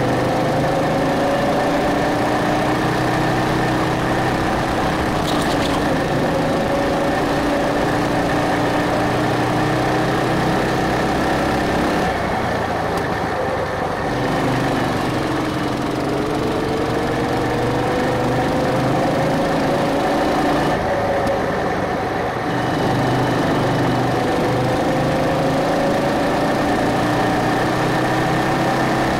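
Go-kart engine running under the driver, its pitch climbing again and again as the kart accelerates and falling away twice, about halfway through and about three-quarters through, as it slows.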